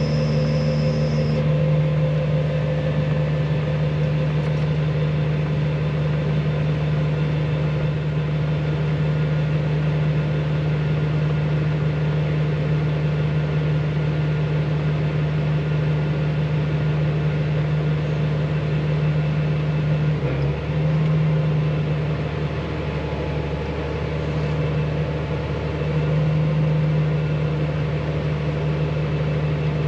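Combine harvester running steadily while picking corn: a constant engine and machinery hum with a brief dip about two-thirds of the way through.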